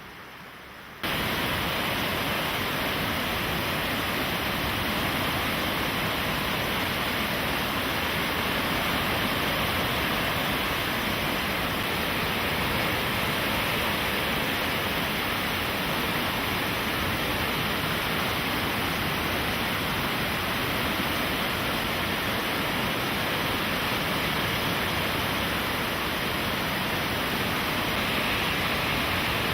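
Rushing water, a loud steady rush that starts abruptly about a second in.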